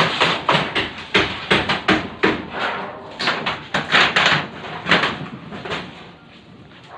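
Hammer blows in a rapid, uneven series of sharp knocks with a short ringing tail, typical of nailing during roof repair; they thin out and fade near the end.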